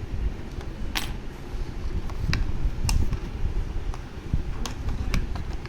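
Sharp plastic clicks, about five of them spread unevenly, over low rubbing and handling noise from the Sony WH-XB910N headphone's ear cup being worked at to release its locking clips.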